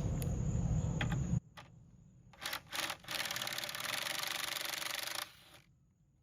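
T30 Torx driver backing a screw out of a MINI window regulator's cable spool. A couple of sharp clicks are followed by a fast, dense run of clicking lasting about two seconds.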